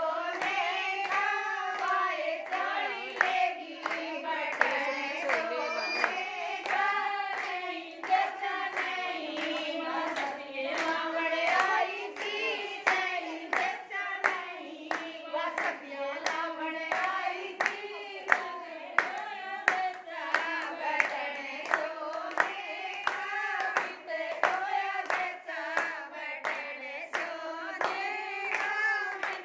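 Group of women singing a Haryanvi jachcha geet, a folk song for a newborn, in unison without instruments, keeping time with a steady beat of hand claps.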